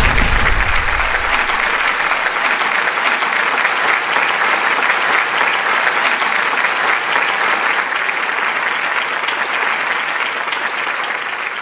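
Steady applause from a crowd, a dense patter of clapping that fades slightly near the end. A deep boom dies away under it in the first two seconds.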